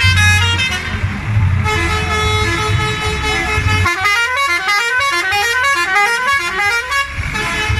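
A bus's musical horn playing a quick melody of stepped notes, with a low hum underneath. About four seconds in the hum drops away for a few seconds while the horn plays fast runs of rising notes.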